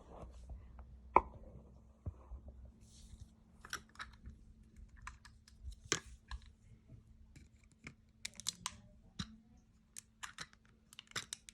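Irregular clicks and light taps of small toy farm vehicles being handled and moved about, with one sharper knock about a second in.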